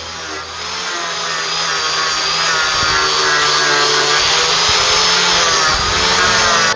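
An electric power tool running steadily with a whining motor, stopping abruptly at the end.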